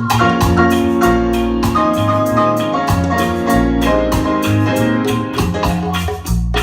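Recorded music with a steady beat and a strong bass line, played through a pair of Elac Debut B6.2 bookshelf loudspeakers and picked up by a phone's microphone in the room.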